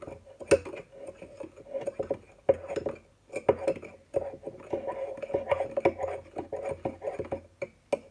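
A spoon stirring dry mug-cake mix (self-raising flour, caster sugar and cocoa powder) in a mug, clinking and scraping against the sides in quick, irregular strokes.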